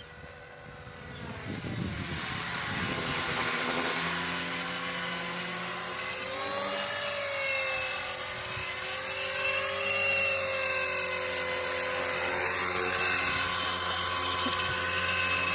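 KDS 450SV electric RC helicopter running. It grows louder over the first few seconds as the rotor and motor come up, then runs with a whine that slowly rises and falls in pitch.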